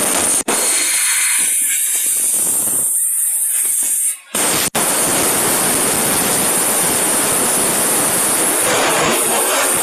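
CNC plasma cutter on stainless steel plate. The torch's air hisses with the arc off, then about four and a half seconds in the arc fires and cuts through the plate with a loud, steady hiss.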